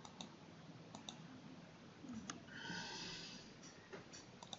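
Quiet pause with a few faint clicks and one soft breath from the lecturer about halfway through.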